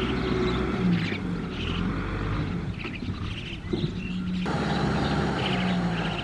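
Tractor diesel engine running steadily, with a sudden change in the sound about four and a half seconds in.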